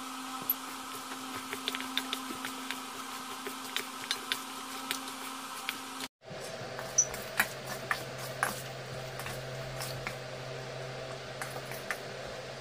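A metal spoon mixing chicken pieces in a wet spice marinade in a stainless steel bowl: soft squelching with scattered clicks and scrapes of the spoon against the bowl, over a steady low hum. The sound drops out briefly about six seconds in.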